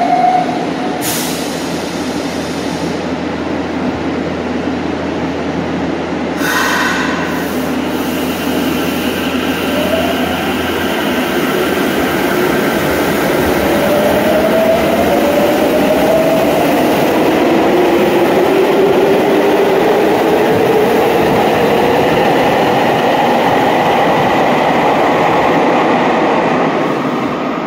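Subway train pulling away from the platform: its traction motors whine in tones that climb steadily in pitch as it gathers speed, over a steady rumble of wheels on rails. Two short hisses come about a second in and again about six seconds in.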